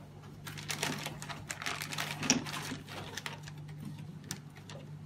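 Clear plastic bags and tubing being handled: crinkling and clicking of plastic, busiest in the first three seconds, over a steady low hum.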